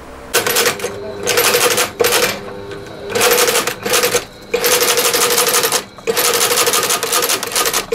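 Cobbler's industrial shoe-repair sewing machine stitching a shoe in short runs of rapid needle strokes, stopping and starting about six times, with a steady motor hum under each run.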